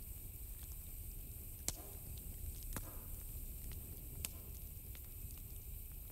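Steady low rumble with a few sharp crackling clicks scattered through it, about four in all.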